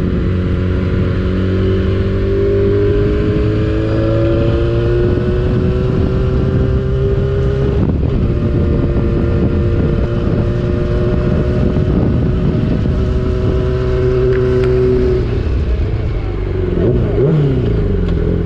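Yamaha R6 sport bike's 600cc inline-four engine running under way. The engine note climbs gradually, dips about eight seconds in, holds steady, and eases off shortly before the end.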